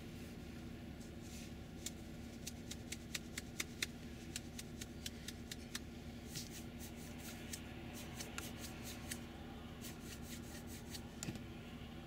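Steady low engine drone of a combine harvester working in a corn field, overlaid by many small, sharp, irregular clicks close to the microphone through most of it.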